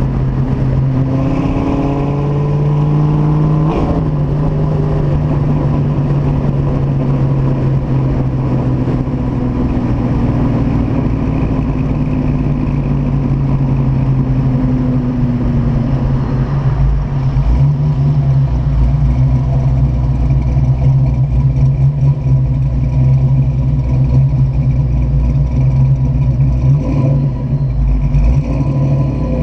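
Freshly rebuilt 311 ci Ford 5.0 small-block V8 with a Comp XE274HR cam, running through an off-road H-pipe and 40-series mufflers during break-in driving. The revs rise in the first few seconds, then the engine runs steadily as the car cruises.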